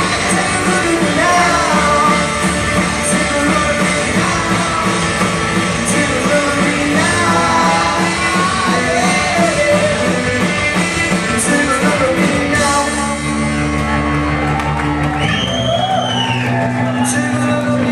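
Live rock band playing with sung vocals. About 13 seconds in, the full band drops back to held low notes, and high swooping notes come in a little later.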